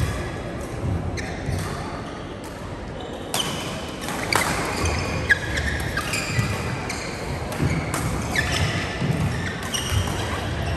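Badminton play in a sports hall: sharp racket strikes on the shuttlecock at irregular intervals, mixed with short squeaks of court shoes on the floor, all with some hall echo.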